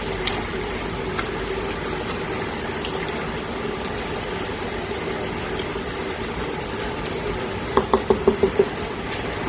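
Chicken pieces being stirred in a nonstick pot with a silicone spatula, over a steady mechanical hum with a fixed tone. Near the end comes a quick run of about six sharp taps as the spatula is knocked against the pot.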